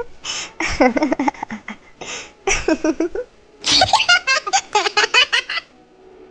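Laughing and giggling voices in several bouts of quick, breathy pulses, the last and loudest bout about four seconds in, stopping shortly before the end.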